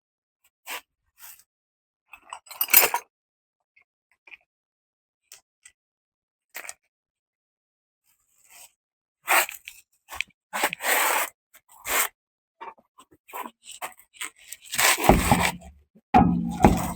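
Intermittent clinks, scrapes and knocks of hand tools and metal parts being handled during rear suspension work, growing busier and louder in the second half with a cluster of heavier knocks near the end.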